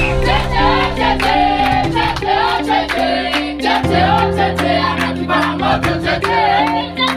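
A song playing loudly, with voices singing over a steady beat, a bass line and a repeating run of stepped notes.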